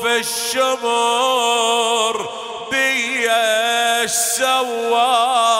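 A man chanting a mournful Arabic elegy solo, in long held notes with wavering ornaments and a brief break about two seconds in.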